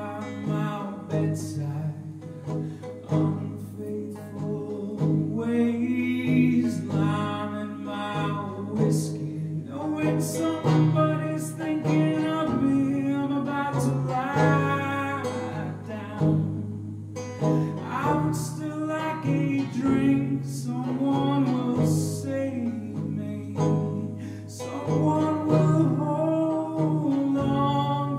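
A man singing a folk song in phrases while picking a banjo.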